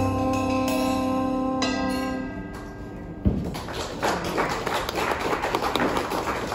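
A jazz band of piano, trumpet, upright bass and drums holds its final chord, which fades out over the first two seconds or so. A single thump comes about three seconds in, and then an audience starts clapping.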